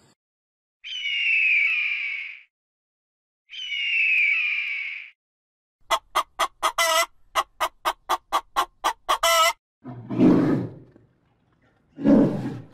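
Animal calls: two long, high-pitched calls, each falling slightly in pitch, then a quick run of about a dozen short pulses. Two lower, rougher calls come near the end.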